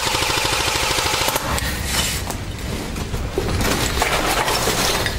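Airsoft gun firing a rapid full-auto burst of about a second and a half, followed by rustling and clattering handling noise.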